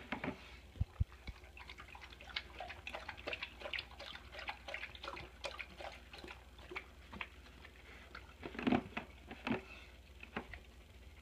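A dog licking and nosing its empty food bowl: quick irregular wet licking clicks and small knocks of the bowl, with two louder bursts about nine seconds in.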